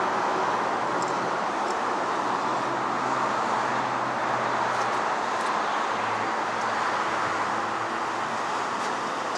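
Steady road traffic noise, a continuous wash of passing cars with a low engine hum now and then.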